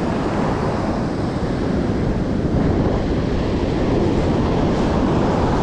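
Steady low rumble of wind buffeting the microphone, mixed with ocean surf breaking on the beach.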